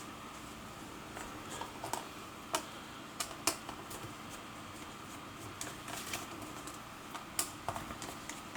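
Small screws and a screwdriver handled on a laptop's bottom case: scattered, irregular light clicks and taps, about eight of them over several seconds.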